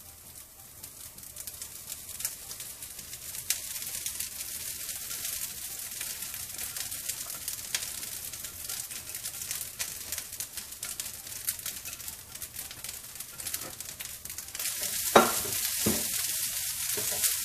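Carrots and peas sizzling in a frying pan as cooked rice is scraped in from a dish with a silicone spatula, with many small scraping clicks. The sizzle gets louder near the end, with two sharp knocks.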